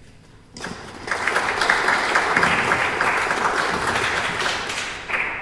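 A small audience applauding, individual claps audible, beginning about half a second in and dying away near the end: the welcome for a speaker who has just been introduced.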